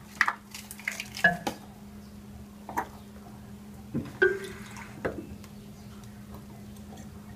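Scattered clicks and clinks of a drinking glass and a pill container being handled while a pill is taken with water, one clink about four seconds in ringing briefly; a steady low hum runs underneath.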